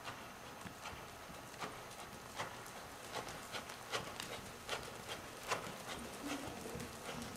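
A horse's hooves striking sandy indoor-arena footing at a trot: a fairly regular run of hoofbeats, loudest as the horse passes close by about halfway through.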